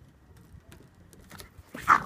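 Mostly quiet, then a small dog gives one loud, short bark near the end, at the start of rough play with another dog.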